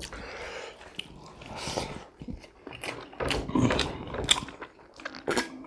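Close-miked eating: irregular chewing and biting of fried pork chop with rice and gravy, a string of short wet mouth and food sounds.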